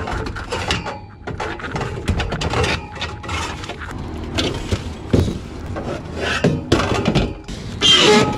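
Sheet-metal clattering and scraping as a gas furnace's old tubular heat exchanger and draft motor assembly are pulled loose and handled, with irregular knocks and rubs. The loudest clanks come about five seconds in and near the end.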